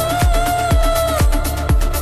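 Electronic dance music with a steady four-on-the-floor kick drum, about two beats a second. A held synth note sounds over the beat and stops a little over a second in.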